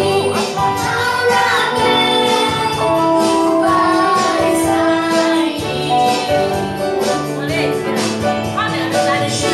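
Children and women singing a Christmas song together, with instrumental accompaniment.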